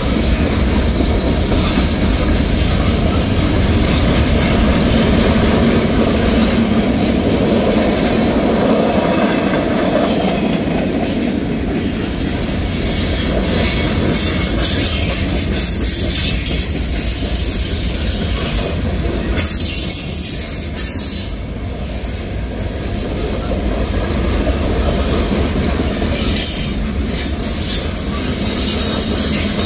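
Freight train cars rolling past on the rails: a steady rumble and rattle of boxcars and covered hoppers, with high wheel squeals coming and going.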